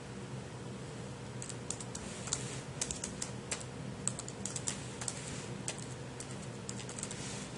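Typing on a computer keyboard: a run of irregular key clicks starting about a second and a half in, over a faint steady hum.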